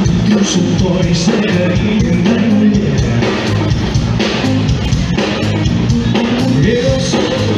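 Live band playing a pop-rock song over a concert sound system with a male singer, loud and steady, with a regular drum beat.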